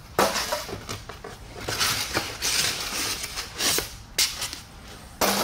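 Polystyrene foam packing blocks rubbing and scraping against cardboard as they are pulled out of a shipping box, with cardboard rustling and a few sharp knocks, the loudest just after the start and near the end.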